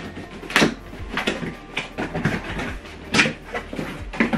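Cardboard shipping cartons being handled and opened: flaps pulled and the boxes shifted, with several sharp cardboard knocks and scrapes.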